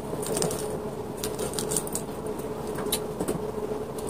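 Scattered light clicks and rustles of clear plastic hamster-cage parts being handled and fitted together, over a steady faint hum.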